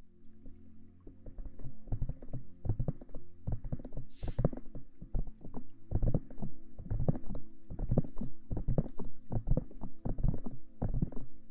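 Aloe vera gel being rubbed and squished over a microphone's ears in quick, irregular strokes, several a second. A short hiss about four seconds in.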